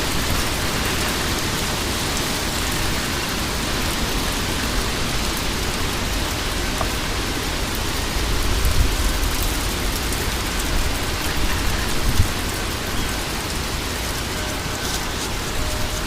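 Heavy wind-driven rain from a severe thunderstorm, a steady hiss, with gusts of wind rumbling on the microphone that swell about halfway through and again a few seconds later.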